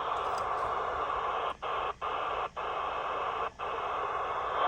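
Stryker SR-955HPC transceiver's speaker hissing with steady receiver static on an empty channel, the electrical noise the owner picks up from his house. The hiss cuts out briefly four times.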